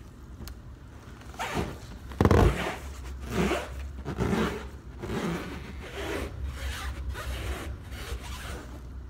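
Latex-gloved hands rubbing and gripping a large clear confetti-filled latex balloon: a run of irregular rubbing strokes, the loudest about two seconds in.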